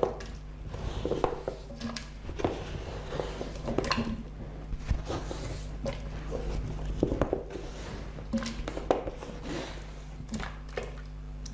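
Potato pieces being dropped and set into the stainless-steel inner pot of an Instant Pot around a beef roast: irregular soft knocks and clunks, one after another, over a steady low hum.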